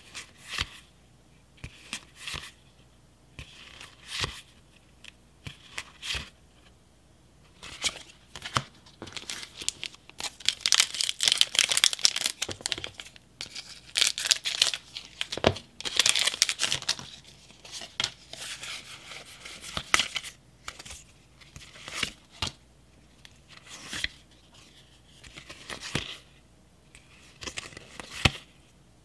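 Pokémon trading cards being handled and flicked one by one, each giving a short click. About ten seconds in, scissors cut open a foil booster pack wrapper, with several seconds of crinkling and tearing. The wrapper noise is the loudest part; single card clicks follow again.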